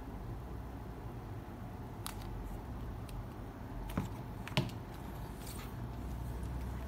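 Hands turning over a large art book on a tabletop: a few light taps and paper-cover rustles, the two sharpest about four and four and a half seconds in, over a low steady hum.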